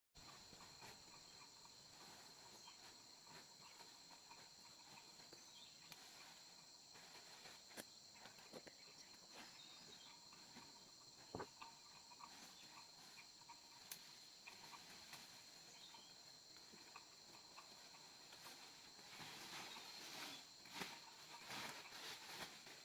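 Faint, steady chorus of crickets or other insects as a continuous high-pitched trill. Occasional soft clicks and rustles stand out, more often near the end.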